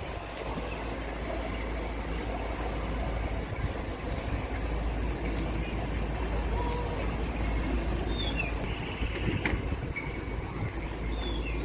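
Steady low outdoor rumble with short bird chirps and brief falling whistles heard over it now and again.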